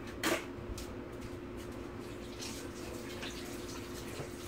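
Water running from a kitchen tap, a steady rush with a faint steady hum, after a short knock just after the start.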